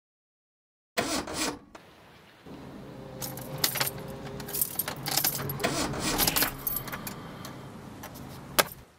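Keys jangling and clicking over the steady low hum of a car, with one sharp click near the end.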